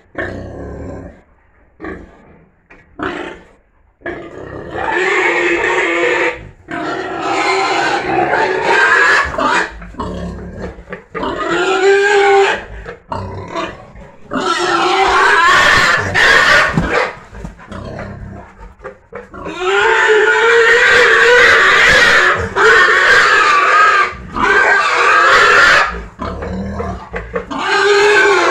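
Pigs calling loudly during mating, a boar mounted on a sow. After a few short sounds at first, long pitched calls come in stretches of several seconds with short breaks between them.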